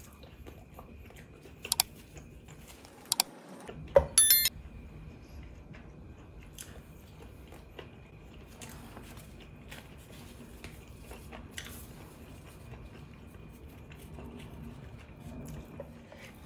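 A person eating a curry with chapati: soft chewing and mouth sounds, with a few sharp clicks and clinks in the first few seconds, the loudest about four seconds in.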